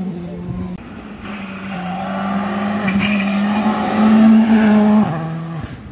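Rally car engine running hard at steady high revs, growing louder as the car nears and loudest about four seconds in. The note then falls away sharply just after five seconds.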